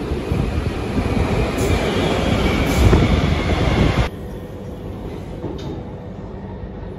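Bangkok MRT Blue Line metro train pulling into an elevated platform: a loud rumble that builds over the first four seconds, with a high wheel squeal about two to three seconds in. It then cuts off suddenly to the quieter, steady rumble of the train running, heard from inside the carriage.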